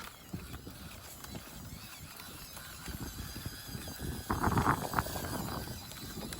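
A 1:18 brushed electric RC rock crawler on the move: irregular knocking and crunching of its tyres and chassis over rough ground, with a faint motor-and-gear whine and a louder cluster of knocks a little past halfway.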